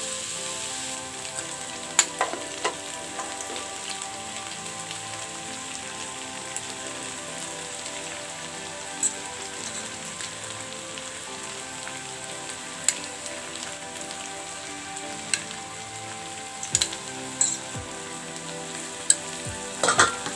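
Vegetables sizzling as they are stir-fried in an aluminium wok, a steady hiss. A metal spatula clicks sharply against the pan now and then, about nine times.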